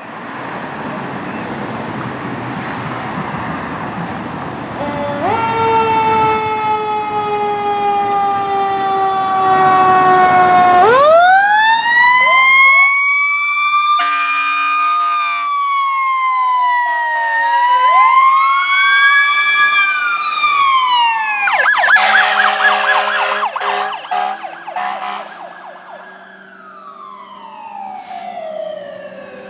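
Fire engine and rescue unit responding with sirens. The sirens rise and fall in long, slow sweeps. Blasts of an air horn sound over them about two-thirds of the way in.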